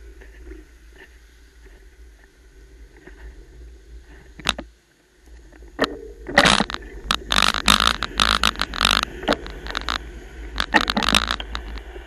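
Rumbling, scraping noise on the camera's microphone, from the camera riding on a wire birdcage as it is carried. A low rumble runs throughout, with a single sharp click; from about six seconds in, dense irregular loud bursts of scraping noise take over until shortly before the end.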